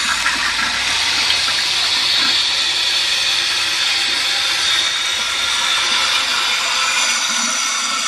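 American Standard Cadet II toilet flushing with the tank lid off: a steady rush of water as the tank drains out past the lifted red flapper, while the ball-float fill valve runs to refill it.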